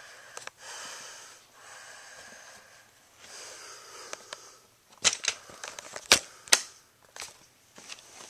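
Handling noise: sharp clicks and knocks of plastic toy train pieces, several close together from about five to seven seconds in, the loudest thing here. Before them, soft hissing noise in long stretches.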